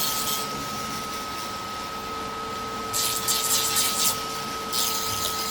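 Small electric nail dust collector fan running with a steady high whine, with two bursts of hissy sanding noise, about three seconds in and again near the end, as a 3D print is sanded over it.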